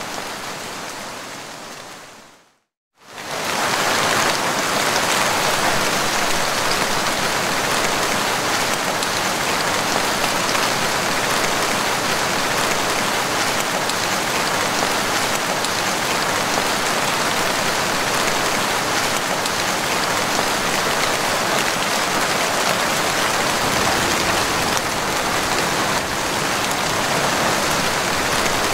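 Heavy rain falling, a dense steady hiss. It fades out to a moment of silence about three seconds in and then comes straight back, a splice between recordings.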